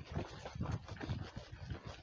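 Footsteps of a hiker walking along a trail: a steady run of soft, low thumps.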